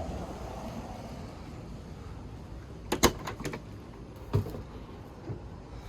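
Pickup truck door being opened: sharp latch clicks about three seconds in, then a thump a little over a second later, over a steady low rumble.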